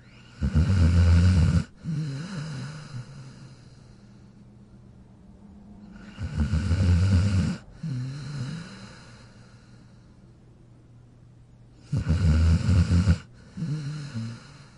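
A sleeping dog snoring: three loud snores about six seconds apart, each a breath in of just over a second followed by a softer, shorter breath out.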